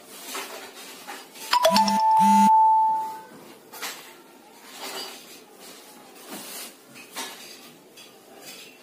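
An electronic chime sounds once about a second and a half in, two notes stepping down in pitch and ringing out for about a second and a half. Around it, soft rustling of clothes being handled and pushed into a fabric storage bag.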